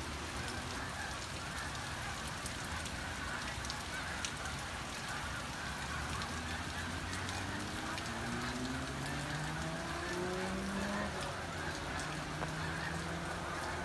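Steady rain falling, a constant hiss of rain on roofs and the deck. In the second half a low, distant drone rises in pitch in several steps.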